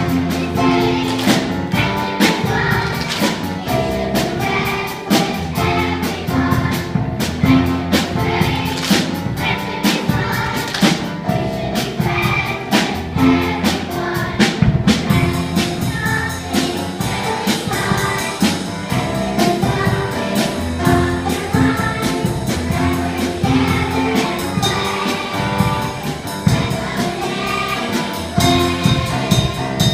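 A group of voices singing together over upbeat backing music with a steady beat.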